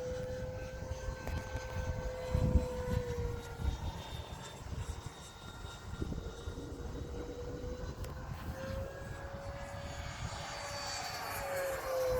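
Freewing Avanti S 80mm electric ducted-fan jet whining in flight, its pitch drifting gently, then rising and falling as it passes near the end. Wind buffets the microphone with a low rumble, strongest about two and a half seconds in.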